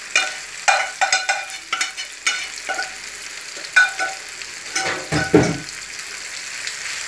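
Soaked dried anchovies in masala being scraped out of a metal saucepan into a frying pan of hot oil, then stirred with a wooden spatula as they start to fry. A run of scraping and clinking strokes, with the metal pan ringing, over a steady frying hiss, and a louder scrape about five seconds in.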